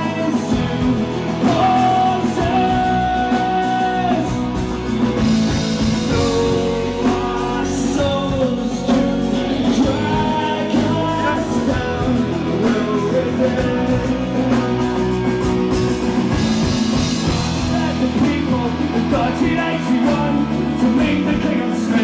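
Live folk-rock band playing an instrumental break between verses, a melodic lead line over strummed guitar and a steady beat.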